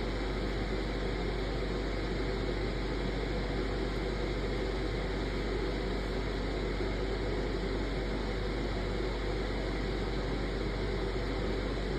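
Steady, unchanging hiss with a low hum underneath and no sudden sounds.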